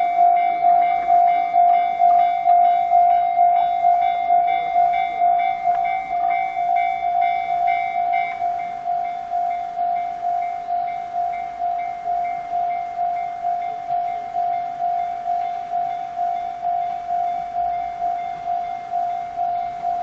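Japanese railway level-crossing warning alarms ringing: an electronic tone repeating about two and a half times a second. The crossing's own Tokai-type alarm mixes with the JR-standard 'pon-pon' alarm of the crossing next door, and a higher-pitched layer of tones fades out about eight seconds in.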